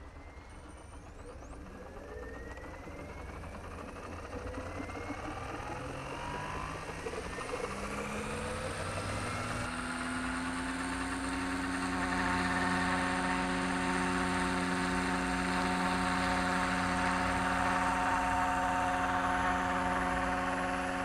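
Roban Superscale AS350 RC helicopter spooling up: a whine that rises steadily in pitch and grows louder for about ten seconds as the main rotor comes up to speed. It then holds a steady pitch at flying speed, with rotor noise, as the helicopter lifts into a low hover.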